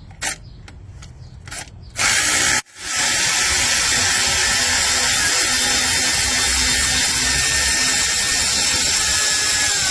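A power ratchet spins out the 16 mm bottom bolt of a car alternator. There is a short burst about two seconds in, then a steady run of about eight seconds.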